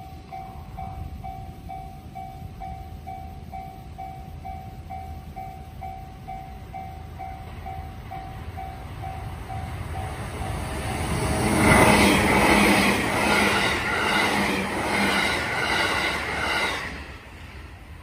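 Japanese level-crossing alarm ringing a steady, rapidly repeating ding, then a JR Nara Line electric train passes through the crossing at speed from about eleven seconds in, loud for some five seconds with rhythmic wheel clacks over the rail joints, before dying away near the end.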